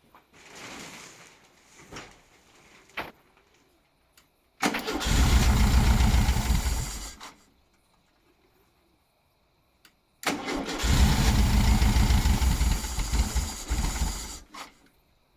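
1976 fuel-injected VW Beetle's air-cooled flat-four being cranked on the starter twice, a short try of about two and a half seconds and then a longer one of about four and a half seconds, turning over without catching: the no-start fault.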